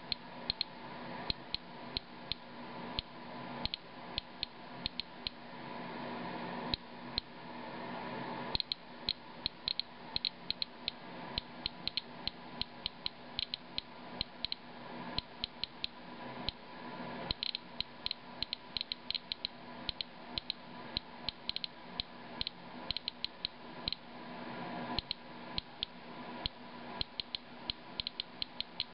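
Inspector Alert Geiger counter clicking at irregular, random intervals, a few clicks a second. Each click is one detected radiation count, here from a rain sample reading about 190 to 220 counts per minute.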